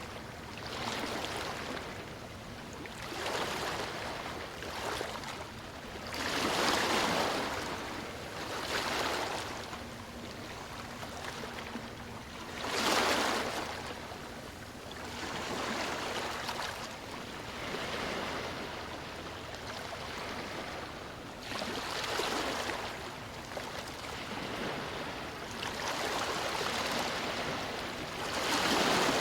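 Sea waves breaking and washing onto a beach, the surf rising and falling in surges every few seconds, with the biggest breaks about 7 and 13 seconds in and near the end.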